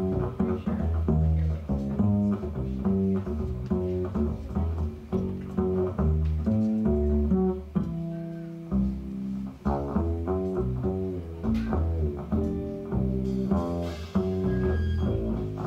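Upright double bass played pizzicato in a jazz solo: quick runs of plucked notes, with a short pause about eight seconds in.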